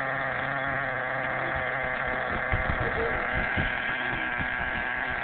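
Redcat Caldera 3.0 nitro RC monster truck engine idling steadily.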